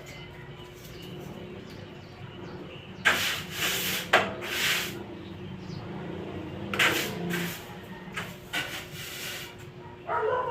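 A run of sneezes from a dust allergy: short, sudden, noisy bursts, the first and sharpest about three seconds in, with more around four, seven and nine seconds in. A brief voiced sound comes near the end.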